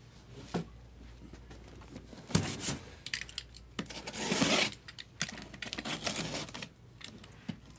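Cardboard card boxes being handled and opened by hand: scattered taps, knocks and scrapes, with a louder half-second rasp of cardboard about four seconds in.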